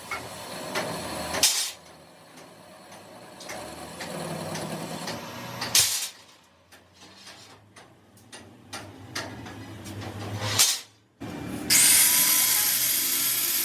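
Workshop power tools running in short clips that start and stop abruptly, with scattered knocks and clicks. Near the end a loud, steady hiss sets in.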